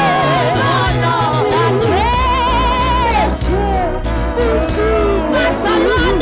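Live gospel praise-and-worship song: a woman's lead voice singing long held notes with vibrato, backed by other singers and instrumental accompaniment with a steady bass line.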